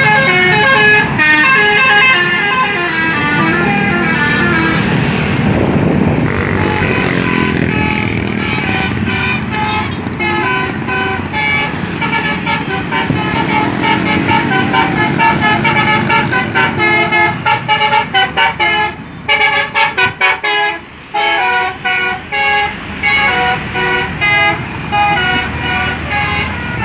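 Bus 'telolet' multi-tone air horn playing a melody of changing notes, with a stretch of quick staccato toots about two-thirds of the way through.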